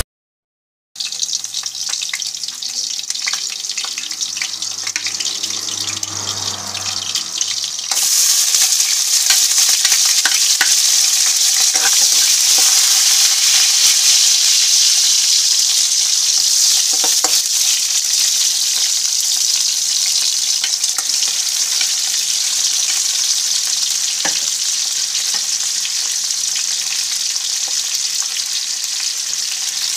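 Sliced onion and garlic, later joined by tomato wedges, sizzling in oil in a wok, the sauté base of pinakbet. The sizzle starts about a second in and grows louder about eight seconds in, with a few sharp clicks of stirring.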